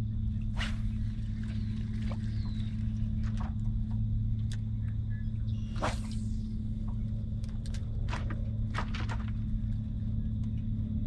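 Bow-mounted electric trolling motor humming steadily, with a few short clicks and swishes from the angler casting and working his rod and reel, the strongest about six seconds in.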